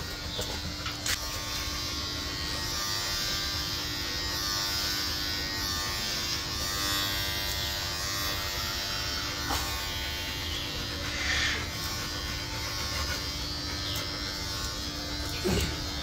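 Electric dog hair trimmer buzzing steadily as its blades run through a golden retriever's thick coat.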